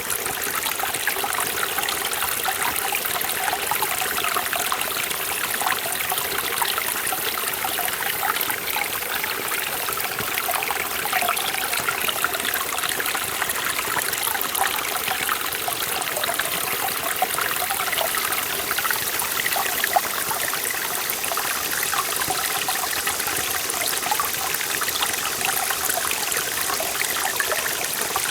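Mountain stream in a forest valley, water running and splashing steadily over rocks, with a bright, burbling texture.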